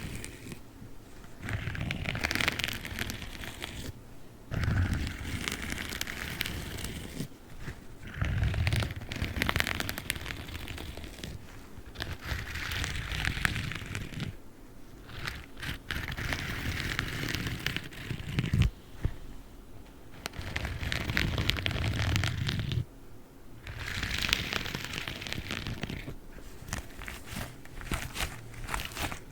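Black gloves rubbed and crinkled close to the microphone, giving crackling, rustling sounds in repeated bouts of a few seconds each with short pauses between.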